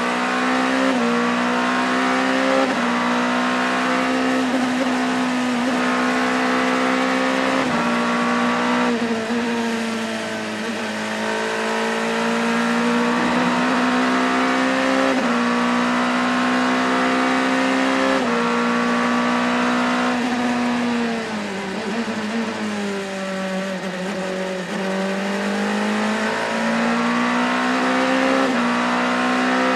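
Gibson 4.2-litre V8 of an Oreca 07 LMP2 prototype at racing speed, heard from the cockpit. The pitch climbs and drops sharply with each rapid upshift, and twice it falls away for a longer stretch as the car slows, then climbs back up through the gears.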